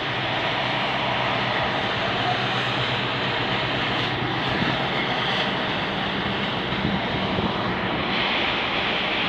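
GB Railfreight Class 60 diesel locomotive passing with a train of biomass wagons, its engine running with a steady drone and low hum.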